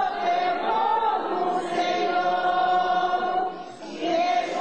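A crowd of mourners singing a slow religious song together in long held notes, with a short break about four seconds in before the singing resumes.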